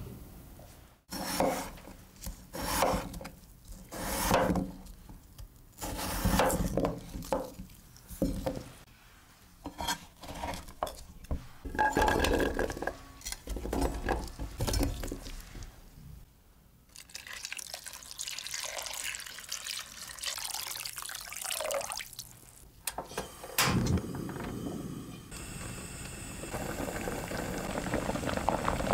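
Peeled potato chunks knocking as they are handled and dropped into a pot, a run of separate knocks and rustles. Then water runs into the pot for several seconds, and near the end the potatoes are boiling in bubbling water.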